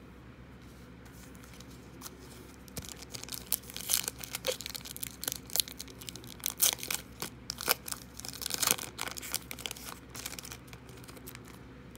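A trading card pack's wrapper torn open and crinkled: a dense run of sharp crackles from about three seconds in until near the end.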